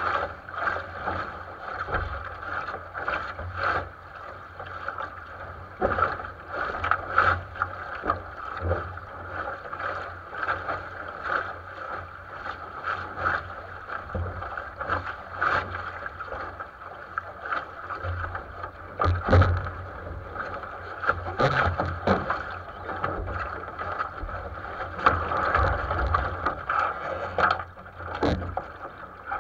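A 470 sailing dinghy under way: water rushing along the hull with wind buffeting the microphone, and irregular knocks and slaps every second or two.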